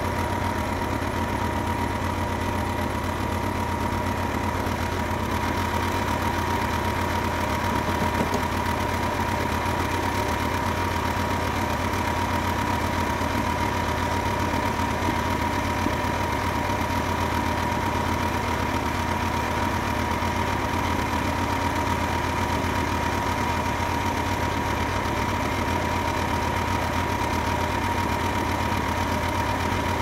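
Band sawmill's pull-start gasoline engine idling steadily, not cutting, with a steady high whine over an even low hum.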